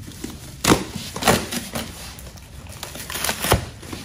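Cardboard shipping box being torn open by hand: packing tape ripping and cardboard flaps crackling. There are sharper rips just under a second in, again shortly after, and once more near the end.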